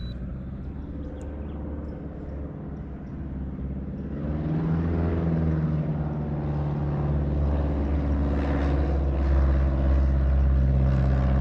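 Airboat engine and propeller running with a steady drone, getting louder about four seconds in.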